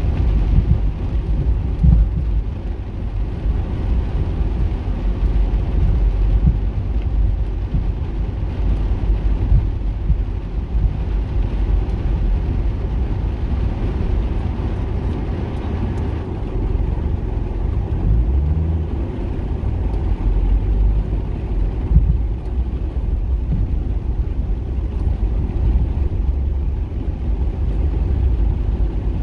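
A car driving on a wet road, heard from inside the cabin: a steady low rumble of engine and tyres, with a fainter hiss of tyres on wet pavement.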